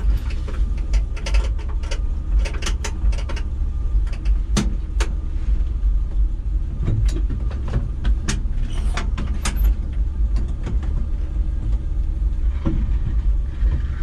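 1970 Chevy C10's straight-six engine running steadily at idle, heard from inside the cab, with scattered clicks and knocks from the cab.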